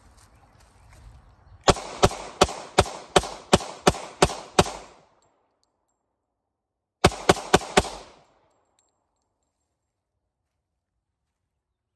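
Glock pistol fired in a quick string of about nine shots, roughly three a second. After a pause of about two seconds comes a faster string of four shots. Each shot trails off briefly.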